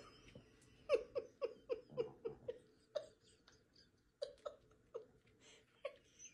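Soft, breathy giggling: a quick run of short falling laughs, about four a second, then a few more scattered ones.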